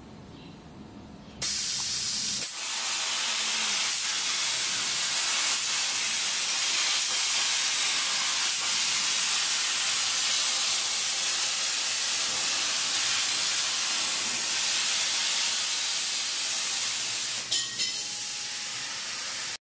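Cutting torch of a CNC sheet-metal cutting machine, a loud steady hiss that starts suddenly about a second and a half in, with a brief flutter near the end.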